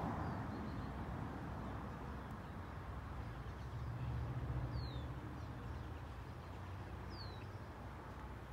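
Two short, downward-sliding bird chirps, about five and seven seconds in, over a steady low outdoor rumble.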